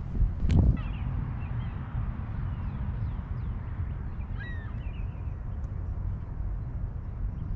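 Outdoor ambience: a steady low rumble with a sharp thump about half a second in, and a few faint bird calls.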